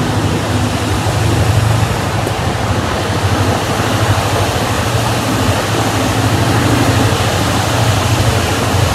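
Passenger train running along, heard from inside the carriage: a steady rushing of wind and wheels on the rails over a low, steady hum.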